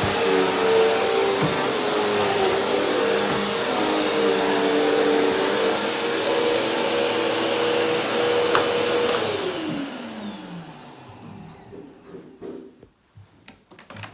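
Vacuum cleaner running, then switched off about nine seconds in, its motor pitch falling as it spins down. A few light clicks and knocks follow near the end.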